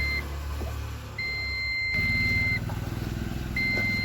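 Repeating high electronic beeps, each about a second long with a pause of about a second between them, over a vehicle engine running low underneath. About two seconds in, the engine's steady rumble gives way to a faster pulsing run.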